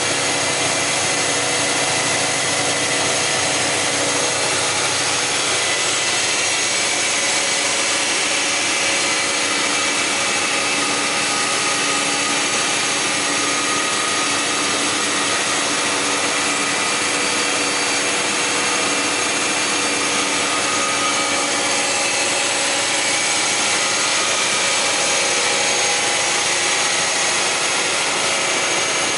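Weinig Quattromat 23P four-sided planer running, its cutterheads spinning at a steady speed with several steady high whining tones over a constant machine noise.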